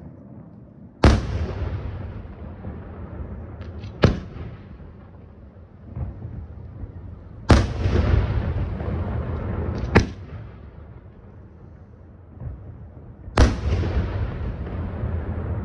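Aerial firework shells bursting: three heavy booms about six seconds apart, each followed by a long rolling rumble, with sharper single cracks between them.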